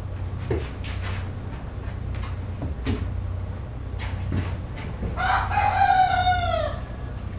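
A rooster crowing once, a long call about five seconds in, preceded by a few short clucks from chickens, over a steady low hum.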